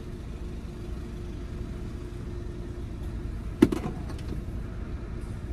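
Steady low hum inside a car's cabin, with a faint steady tone, broken by a single sharp click about three and a half seconds in and another just at the end.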